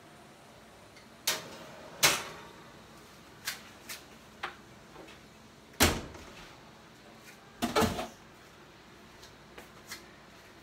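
Knocks and clanks of an oven door and a metal roasting tray as cooked pork is taken out of a kitchen oven: a string of separate sharp knocks, the loudest about two, six and eight seconds in.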